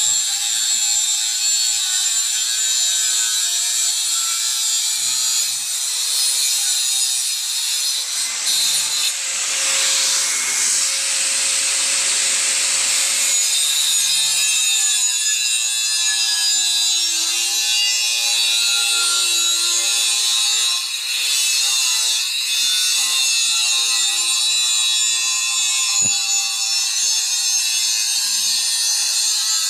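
Angle grinder with a thin cutting disc slicing through steel pipe: a steady, loud, high-pitched grinding screech whose pitch wavers in places as the disc bites into the metal.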